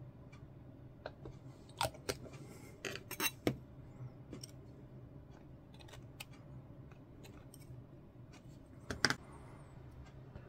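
Sparse light clicks and snips of small plastic model-kit parts being handled, a cluster about three seconds in and another near the end, over a faint low hum.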